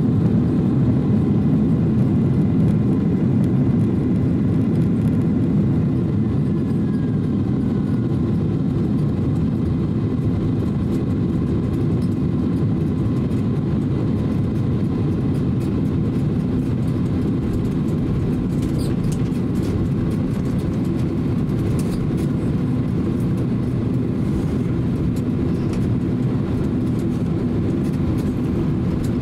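Cabin noise inside a Boeing 767-300 rolling out on the runway just after landing: a steady low rumble of the engines and the wheels on the runway, a little louder for the first few seconds and then even, with a few faint rattles about two-thirds of the way through.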